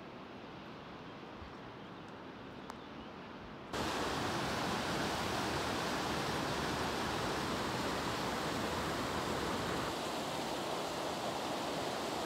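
A mountain river rushing over rocks and small rapids, a loud, steady roar of water that comes in abruptly about four seconds in. Before it, a quieter outdoor hiss with a few faint clicks.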